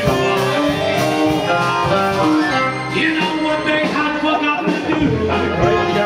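Live band playing a song: electric guitar over drums, with held melodic notes.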